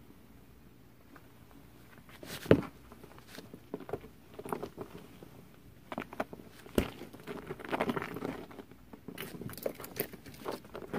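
Ferrets scampering and scuffling on a woven rag rug, the rug rustling and shifting, with scattered taps and knocks and a sharp thump about two and a half seconds in.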